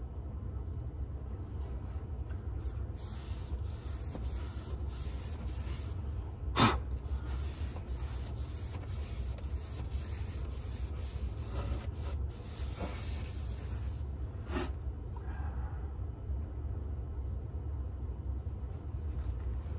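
Chamois-covered foam applicator wiping over a leather car seat: a soft, repeated rubbing as a ceramic coating is spread. Two brief, louder knocks come at about 7 and 15 seconds in.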